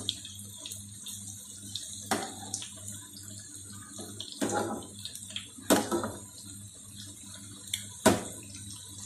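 Pumpkin pakoras sizzling as they deep-fry in hot ghee in a steel pan, with a slotted metal spatula scraping and knocking against the pan about four times as they are turned.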